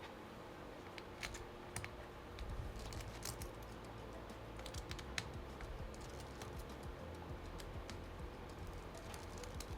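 Faint, irregular light clicks and taps of a small screwdriver and tiny screws as screws are backed out of a laptop's chassis, with low handling bumps.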